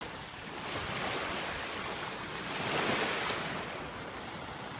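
Small waves washing onto a sandy beach in the shallows, a steady wash that swells and eases every second or two.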